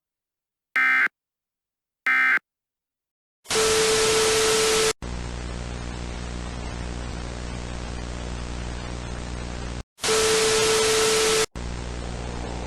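Two short warbling data bleeps of an Emergency Alert System end-of-message signal, a second or so apart, then silence. About three and a half seconds in, loud static with a steady tone breaks in and drops to a quieter hiss over a low hum. A second loud burst of static and tone comes near the end before the hiss and hum return.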